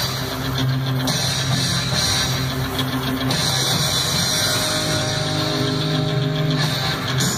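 Rock music with electric guitar and drums playing steadily, with sustained held notes.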